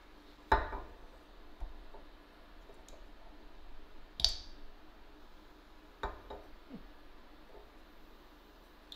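Clicks and knocks from a glass condiment jar and a soy sauce bottle being handled. There is a knock about half a second in, then a sharp, bright click of the bottle's plastic cap being twisted open about four seconds in, and a few softer taps.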